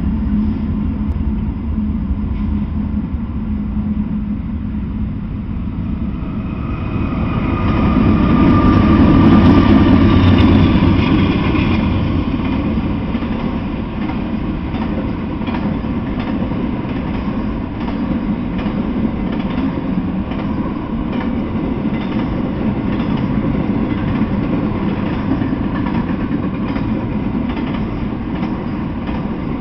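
Norfolk Southern freight train passing close by: the diesel locomotives' engines humming at first, then the steady rumble and clatter of intermodal container and trailer cars rolling past, swelling louder for a few seconds about a third of the way in.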